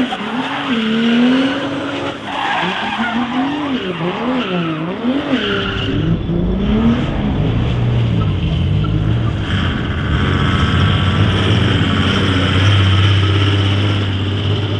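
Mercedes W124 drift car's turbocharged OM606 straight-six diesel being driven hard in a drift, with its tyres skidding and smoking. The revs swing up and down several times over the first six seconds or so, then settle lower and steadier.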